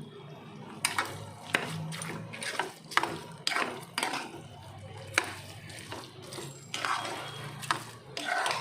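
Metal ladle clinking and scraping against a metal pot as a hot mustard-seed and onion tempering is poured over the mixed rice and stirred in: a dozen or so irregular sharp clinks.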